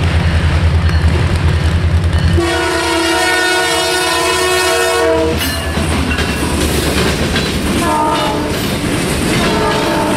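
Diesel locomotive rumbling past close by, then its multi-chime air horn sounds a long blast of about three seconds, starting about two seconds in. Shorter, fainter horn notes follow near the end as the train's cars roll by, wheels clicking over the rails.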